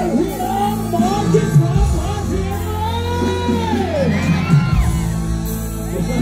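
Live Thai luk thung band music over a PA system, with steady backing notes and a voice singing into a microphone; about halfway through the singer holds one long note that rises, then bends down and breaks off.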